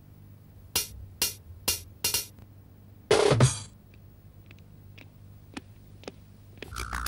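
Percussive intro music: four sharp drum hits about half a second apart, a short crash-like burst about three seconds in, a quiet sparse stretch, then a steady tone with fast rhythmic ticks coming in near the end.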